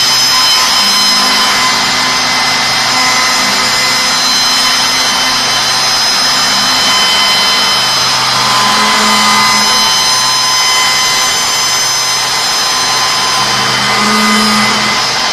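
Two-spindle CNC wood shaper (toupie) running, its high-speed spindles whining steadily while the cutters machine a wooden workpiece. A lower hum swells and fades several times.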